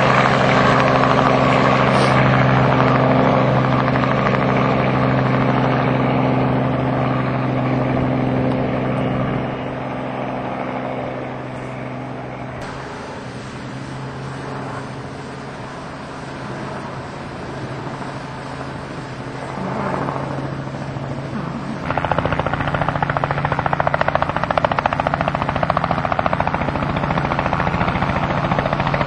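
Helicopter engine and rotor running with a steady drone. It fades in the middle, then comes back suddenly louder about three-quarters of the way through.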